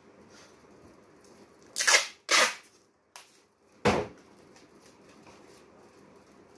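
Two brief, loud rustling scrapes about two seconds in, then a single dull thump about four seconds in, from a person handling things close by.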